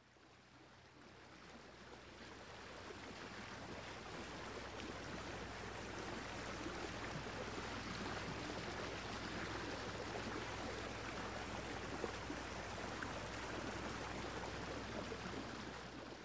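Steady rushing water, fading in over the first few seconds, with a low steady hum underneath.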